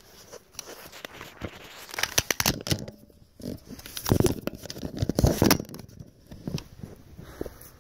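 Crunching and rustling from a person moving about on foot, with two louder spells of crackling about two seconds and four seconds in.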